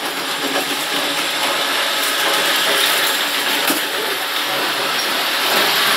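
DJ Models Hunslet 00 gauge model locomotive running around the layout with a rake of wagons: a steady whir from its motor and wheels over the track, with a few light clicks at rail joints, growing a little louder toward the end.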